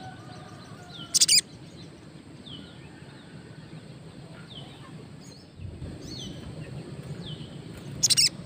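A caged sunbird (sogon), a newly kept wild bird only just starting to sing, gives short falling chirps every second or two. It also gives two loud, harsh bursts, one about a second in and one near the end.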